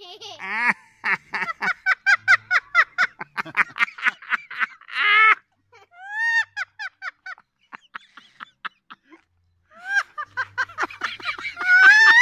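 White cockatoo imitating human laughter: quick runs of short 'ha-ha' notes, about six a second, broken by a few drawn-out calls that rise and fall, with a louder rising call near the end.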